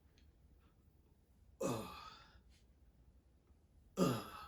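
A man's heavy breathy sighs, twice about two seconds apart, each falling in pitch: acting out being winded from tossing heavy branches.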